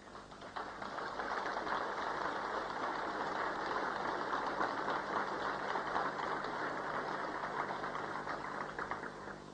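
Audience applauding: a dense crackle of many hands clapping that swells within the first second, holds steady, and dies away near the end.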